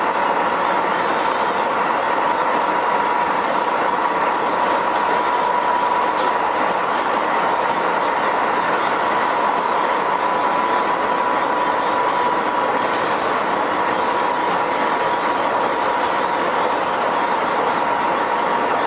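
Running noise of a renewed Keisei 3500-series electric train under way between stations: a steady rush of wheel and rail noise with a steady high whine held throughout.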